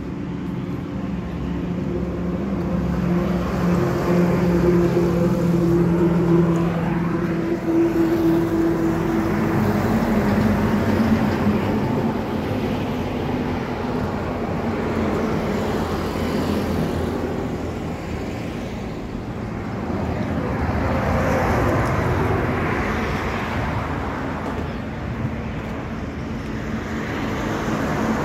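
A motor vehicle engine runs with a steady hum for about the first ten seconds. Road traffic noise then swells and fades twice, like vehicles passing by.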